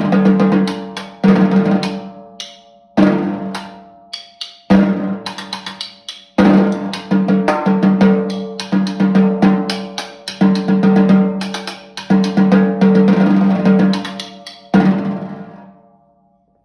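Snare drum played solo: phrases of rolls and accented strokes, each opening with a sharp hit and fading, and the last phrase, begun about 15 seconds in, dies away near the end.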